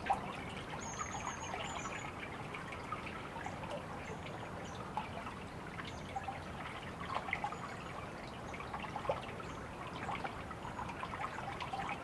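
Water trickling, with scattered small drips. A brief high chirp about a second in.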